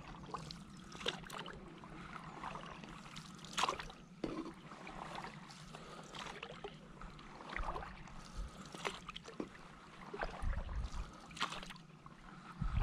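Stand-up paddle strokes: the paddle blade dips and pulls through calm water, with irregular small splashes and drips as it comes out.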